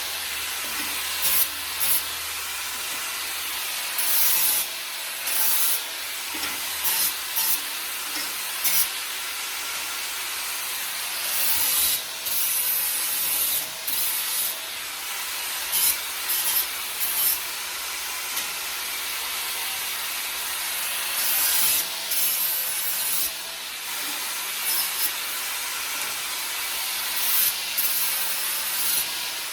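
Abrasive power tool, such as a sander or grinder, working on sheet metal. It makes a steady hiss with short, harsher surges every second or two.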